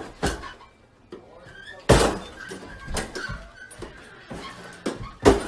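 Knocks and thuds of a detached hollow-core interior door being handled and bumped about, with the loudest thud about two seconds in and a couple more near the end.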